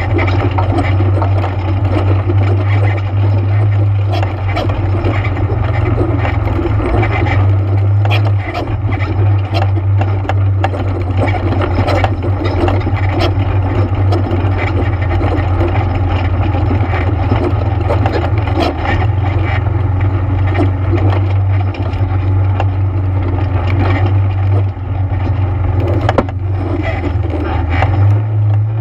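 ATV engine running steadily as the machine is ridden along a trail, with frequent knocks and rattles over a constant low drone.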